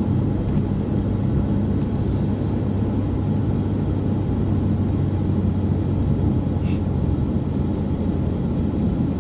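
Motorcycle running steadily at road speed, a constant engine hum mixed with wind rush.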